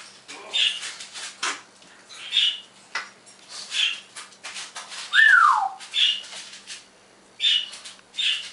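African grey parrot making a string of short, sharp chirping calls, with one loud whistle sliding down in pitch about five seconds in.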